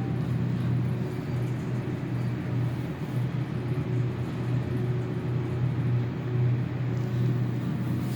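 A steady low mechanical hum over a constant rumble, unchanging throughout.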